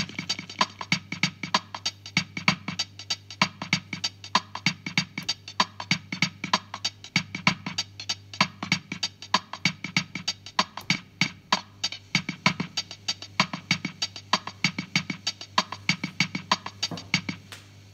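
Casio CZ-230S drum-machine bossa nova rhythm played through a Vermona DEG 500 digital delay: a dense, steady pattern of electronic percussion hits with their echoes, over a steady low hum. The rhythm stops about half a second before the end.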